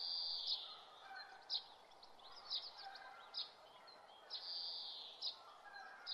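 Birds calling: short chirps about once a second, with two longer calls, one at the start and one about four seconds in, over faint outdoor background noise.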